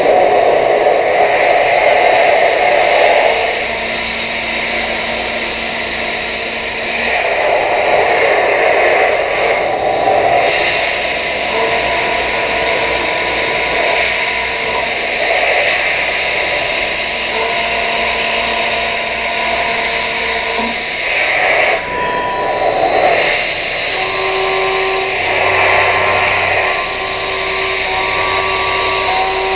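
CNC milling machine cutting metal with a milling cutter: a loud, steady cutting noise with high whining tones held for a few seconds at a time, shifting between cuts, and a brief drop in level about two-thirds through.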